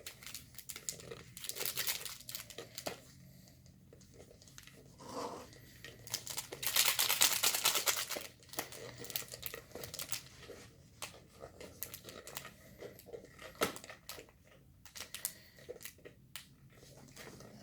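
Rustling and crinkling of packaging and supplies being handled, with scattered small clicks and one longer tearing rasp lasting about two seconds around the middle.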